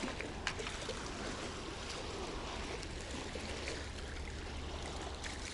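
Seawater lapping and trickling with a steady wash, and a single sharp click about half a second in.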